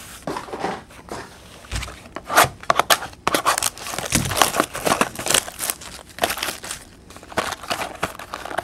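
Trading card packs being handled and torn open: irregular rustling and crackling of the wrapper, with scattered sharper rustles.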